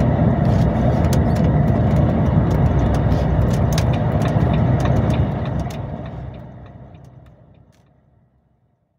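Articulated truck driving at motorway speed: a steady low engine and road rumble with frequent small clicks and rattles. The sound fades out smoothly from about five seconds in to near silence near the end.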